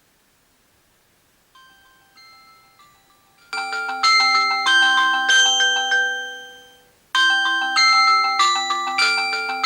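A mobile phone alarm ringtone: a short melodic tune of ringing notes that starts softly about one and a half seconds in, jumps to full volume about two seconds later, and loops about every three and a half seconds.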